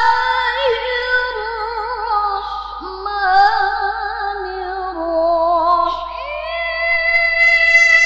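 A woman reciting the Qur'an in the melodic tilawah style: long held notes with wavering ornaments that step down in pitch, then a leap about six seconds in to a high, long-held note.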